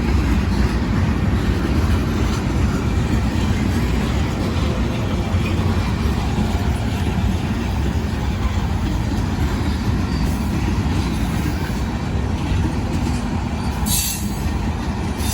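Union Pacific freight train loaded with rock rolling past, a steady low rumble of heavy cars on the rails, with a brief high-pitched sound near the end.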